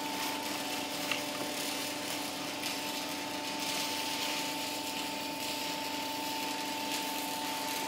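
16-ton swing-arm cutting press's hydraulic pump motor running with a steady hum, with one small click about a second in.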